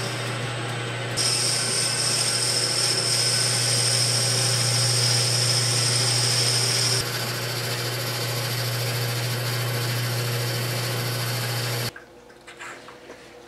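South Bend 13-inch lathe running, a boring bar cutting inside a workpiece spinning in a three-jaw chuck: a steady motor hum, with a high-pitched whine over it from about a second in to about seven seconds in while the tool cuts. The lathe sound stops abruptly near the end, leaving only faint handling sounds.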